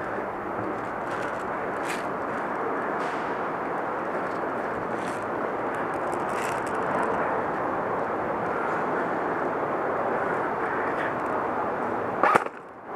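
A steady rushing noise with a few faint clicks scattered through it, and one sharp knock near the end.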